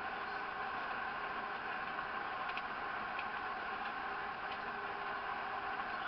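Steady engine and road noise inside a moving car, even throughout, with a couple of faint ticks.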